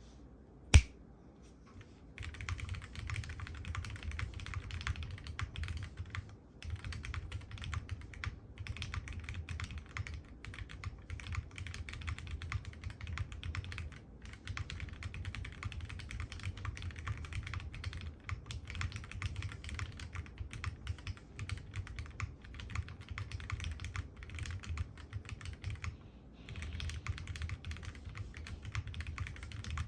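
Owlab Spring custom mechanical keyboard with lubed Cherry MX Vintage Black linear switches, an aluminium plate and GMK keycaps, typed on quickly and continuously: a soft, chalky clacking of keystrokes with a few brief pauses. A single sharp click comes just under a second in, before the typing starts.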